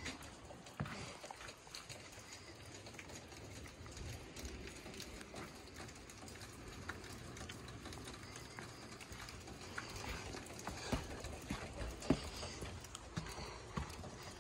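Footsteps walking over a wooden boardwalk and snowy paths: irregular light knocks and scuffs with scattered small clicks, the steps louder near the end.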